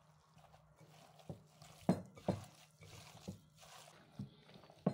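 Hands kneading raw ground beef and pork mince with grated onion in a bowl: wet squelches and soft slaps, about six of them at irregular intervals.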